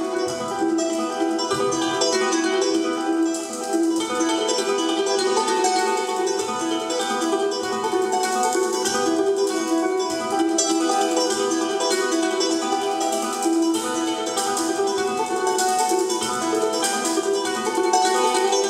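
A duo of plucked string instruments of the charango family plays an instrumental piece, with many quick plucked and strummed notes.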